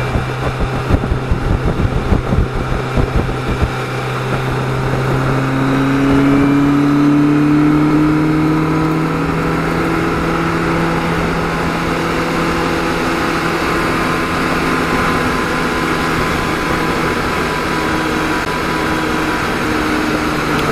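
Motorcycle engine running at road speed with wind noise buffeting the microphone for the first few seconds. About four seconds in, the engine note climbs as the bike accelerates to overtake, then holds steady.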